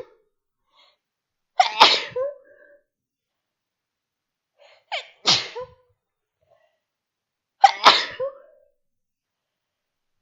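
A woman sneezing three times, about three seconds apart: induced sneezes. Each is a sudden loud burst that trails off within about a second.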